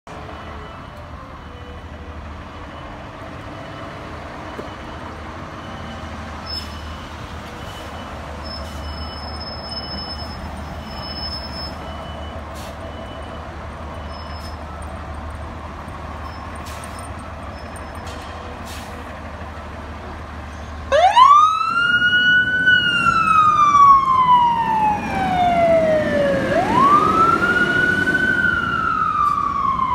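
Fire engine rumbling at low speed, with short evenly spaced beeps. About two-thirds of the way in, its siren starts: two wails, each rising quickly and then falling slowly, much louder than the engine.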